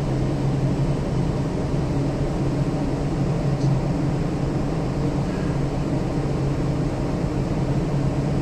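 Steady low drone of heavy machinery, a constant hum with no change in pitch or level.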